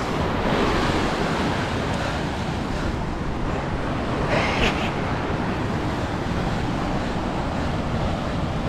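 Ocean swell surging and breaking white against a rock ledge, a steady heavy wash, with wind rushing over the microphone.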